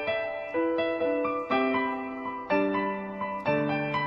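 Background piano music: a slow melody of held notes, each new note struck with a soft attack that then fades.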